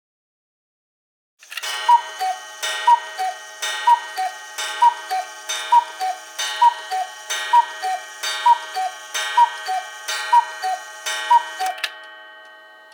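Schneider one-day cuckoo clock striking the hour: its two-pipe cuckoo call, high note then low note, sounds eleven times at about one call a second, each with a click of the mechanism.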